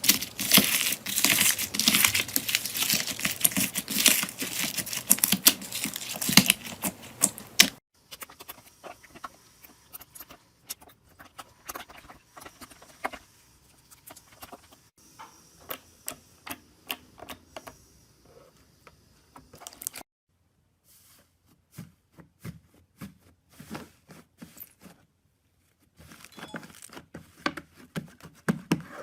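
Slime being squeezed and pressed, crackling and popping densely for the first several seconds, then in sparser pops and clicks with short silent breaks between clips.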